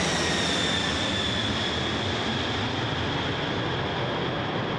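Jet aircraft flying past: an engine whine slides down in pitch over the first second or so, over a steady rush of jet noise that slowly fades.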